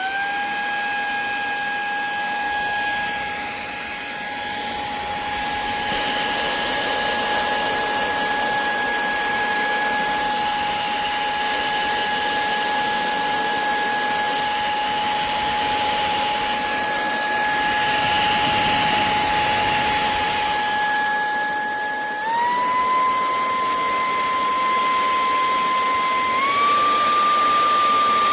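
A KLYNGTSK cordless handheld vacuum cleaner's electric motor running with a steady high whine over an airy rush. Its whine steps up in pitch twice near the end.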